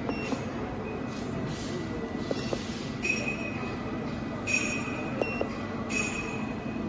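Steady machinery hum with several short, high-pitched whining tones coming and going, and a few light clicks.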